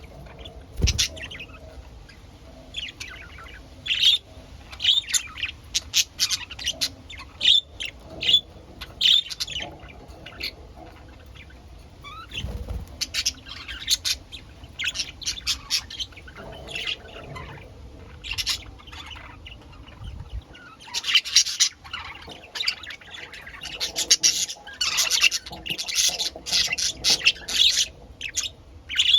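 Pet budgerigars chirping and chattering in short high calls throughout, growing busier and denser about two-thirds of the way in.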